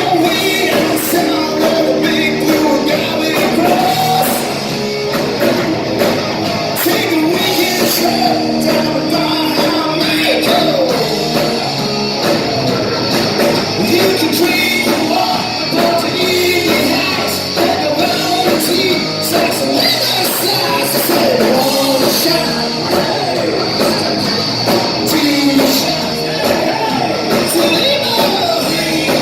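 Rock band playing live, with a singer's voice over electric guitar and drums.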